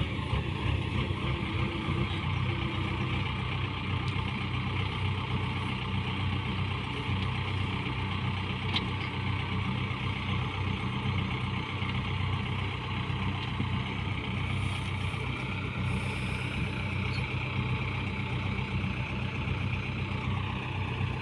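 Farm machine engine running steadily at an even speed, a continuous low drone with no breaks.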